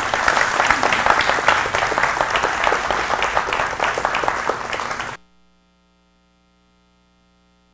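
Audience applauding, a dense patter of many hands clapping, cut off abruptly about five seconds in.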